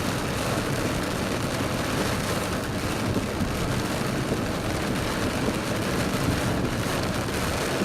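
A car driving in heavy rain: a steady hiss of tyres on a wet road and rain on the car.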